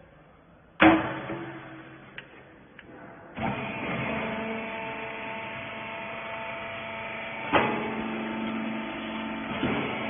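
A loud bang about a second in as the hopper lid of a small hydraulic baler is shut, then the baler's electric motor and hydraulic pump start and run with a steady hum while it compresses the load, with a sharp clunk about three-quarters of the way through.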